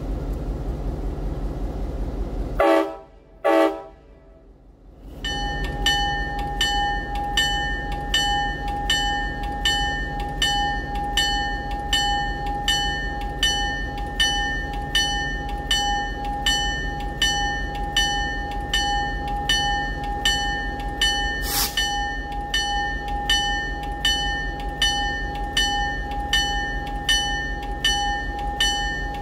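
Locomotive horn sounds two short blasts over a running diesel engine, the signal that the train is releasing brakes and proceeding. A few seconds later the locomotive bell starts ringing steadily, about one and a half strikes a second, over the engine as the train departs.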